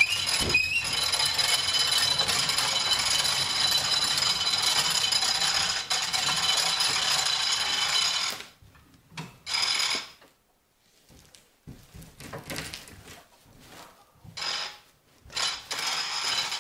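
The hand winch of an Edma drywall and OSB panel lift is being cranked to raise a board to the ceiling, its ratchet lock clicking continuously. It runs for about eight seconds, stops abruptly, and is followed by a few short bursts of cranking as the board is brought up against the ceiling.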